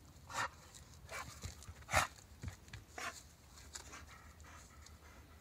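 A pit bull eating leaves from a garden bed of hostas: short, separate snuffling and crunching noises, roughly one a second, the loudest about two seconds in.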